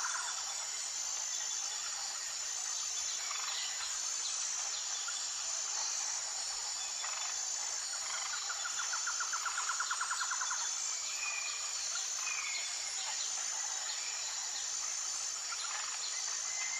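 Tropical forest ambience: a steady high insect drone under birds calling in short whistled notes. About eight seconds in, a fast pulsing trill runs for a couple of seconds.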